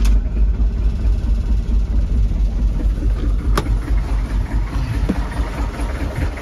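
Peugeot Boxer 2.5-litre diesel engine idling, with a sharp click about three and a half seconds in.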